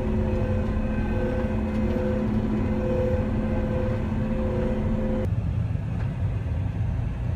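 A John Deere 9400 combine harvester running: a steady low diesel rumble with a steady droning whine over it. The whine cuts off suddenly about five seconds in, and the rumble carries on.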